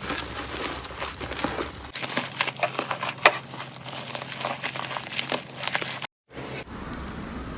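Slime being pressed and squeezed by hand: a dense run of small crackles and pops. The sound breaks off for a moment about six seconds in, then similar handling carries on.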